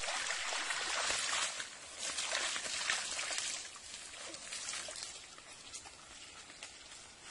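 Water streaming and dripping off a wet mosquito net lifted out of a muddy stream, an even splashing hiss that fades after about three and a half seconds into light footsteps through grass.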